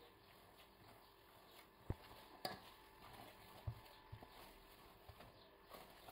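Wet, sticky yeast dough being kneaded by hand in a stainless steel bowl: faint squelching and stretching, with a few sharp slaps or knocks as the dough is lifted and dropped back.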